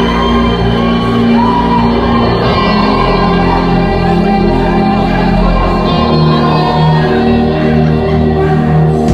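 Live rock band music with a sung lead vocal, loud and continuous.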